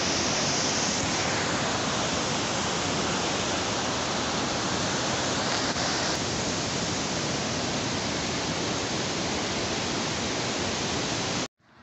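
Fast-flowing muddy mountain river rushing over boulders in rapids: a loud, steady rush of white water that cuts off abruptly near the end.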